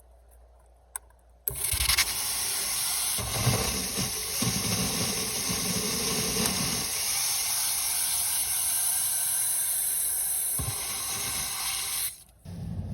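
Irrigation water rushing and hissing under pressure. It starts abruptly about a second and a half in, after a faint click, and cuts off suddenly near the end.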